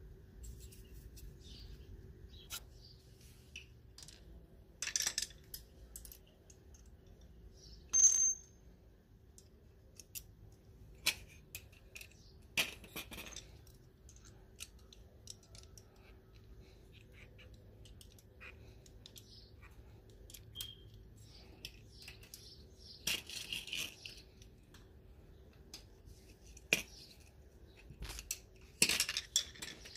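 Hand tools and small metal parts clinking and clicking irregularly during ignition coil work, over a faint steady hum. One louder sharp click with a brief high ring about eight seconds in.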